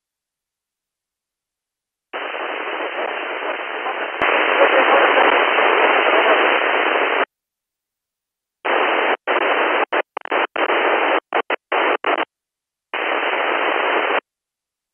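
Narrow, telephone-band static hiss from a software-defined radio receiver's audio output, switched abruptly on and off by the squelch while it is tuned across Inmarsat L-band frequencies. About two seconds in comes a long stretch of hiss that gets louder partway through. A run of choppy short bursts follows, then one more stretch near the end.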